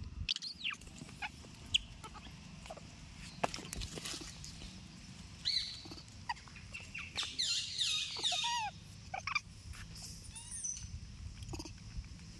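Scattered short, high-pitched animal squeaks and chirps, bunched into a dense run a little past the middle, with a few sharp clicks in between.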